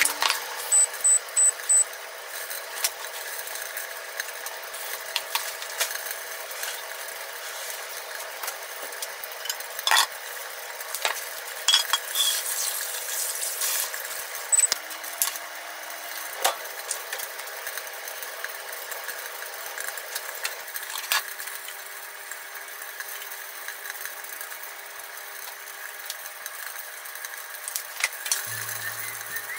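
Plates, bowls and utensils clinking and knocking on a kitchen counter as food is plated, with a quick run of clicks about a second in, over a steady background hiss.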